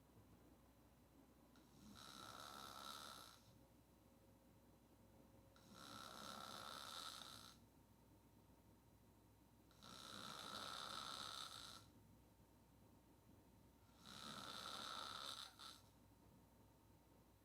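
A woman snoring on her back with her mouth open: four snores about four seconds apart, each lasting a second and a half to two seconds, with quiet in-between.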